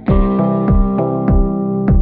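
Background music: sustained chords over a steady beat, about three beats every two seconds, starting afresh right at the beginning.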